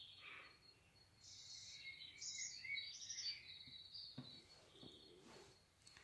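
Faint birdsong chirps over a steady high insect trill, with two soft knocks a little after four seconds in.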